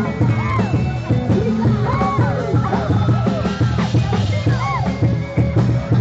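Live dangdut band music played loud through the stage speakers, with a heavy, steady bass beat and a melody line that swoops up and down every second or two.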